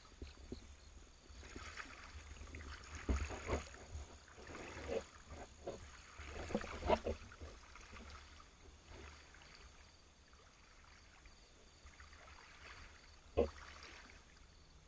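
Water sloshing and splashing as a spearfisher moves through shallow water, with several sharp knocks; the loudest come about three and seven seconds in, with another near the end.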